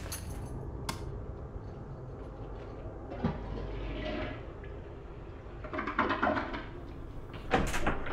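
Low room rumble with a few sharp clicks and knocks: one about a second in, a cluster around six seconds and the loudest near the end.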